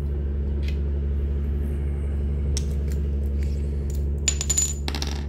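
Metal crimping parts being handled: a few light clicks, then a quick run of metallic clinks with a brief high ring about four seconds in, over a steady low electrical hum.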